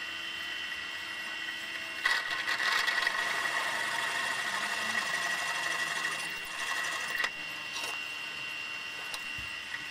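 Drill press running at slow speed with a steady motor whine, its small drill bit cutting a pilot hole into a cast metal manifold; the cutting grows louder and rougher about two seconds in and eases off after about seven seconds.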